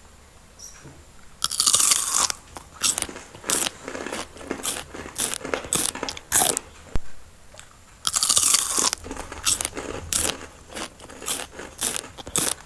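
Crisp fried shrimp spring rolls (sumpia udang) being bitten into twice, about a second and a half in and again about eight seconds in, each bite a long loud crackle of the fried wrapper, followed by close-up crunchy chewing.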